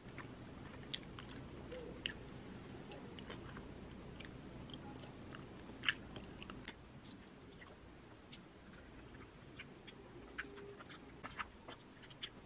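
Close-up chewing of yogurt topped with nuts and dried fruit: soft mouth sounds with scattered sharp crunches, the loudest about six seconds in, and light clinks of a metal spoon in a plastic cup.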